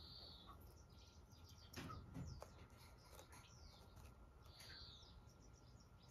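Near silence with faint, short, high chirps, two of them standing out at the start and near the end, and a soft low bump about two seconds in.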